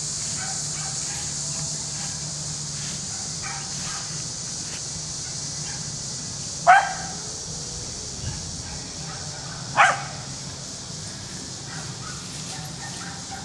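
Mountain Feist squirrel dog barking twice, two short sharp barks about three seconds apart, over a steady high-pitched hiss.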